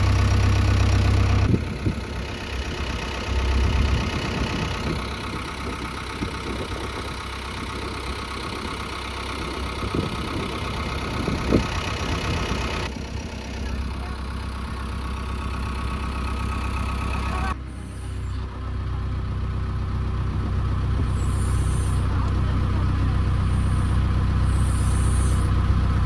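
Diesel engine of a JCB 3DX backhoe loader running steadily, with a few sharp knocks about ten seconds in. The sound changes abruptly shortly after the start and again about two-thirds of the way through.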